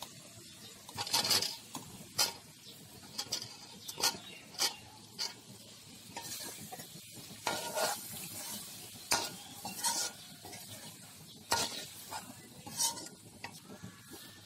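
Raw potato wedges tumble into a metal kadai of frying spiced masala about a second in. A long steel ladle then scrapes and clinks against the pan as it stirs, about a dozen sharp strokes over a low sizzle.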